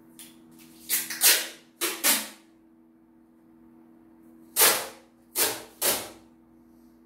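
Adhesive packing tape being pulled off its roll in short, loud rips, two and then three in quick succession.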